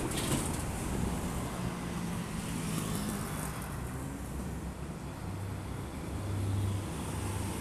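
Road traffic running steadily with a low engine hum, and under it the sizzle of dough frying in a wok of hot oil.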